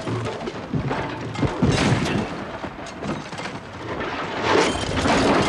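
Low booming thuds over a rushing noise that swells and fades.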